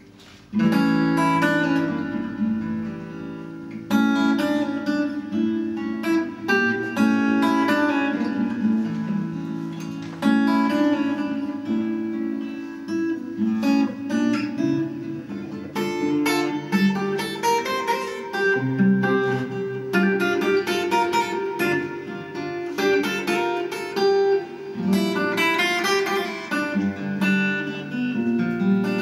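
Solo steel-string acoustic guitar playing an instrumental piece of plucked notes and chords, starting about half a second in.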